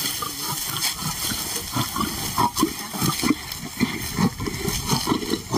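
Male lion growling and snarling in short, irregular outbursts as he guards a meat carcass from an approaching lioness.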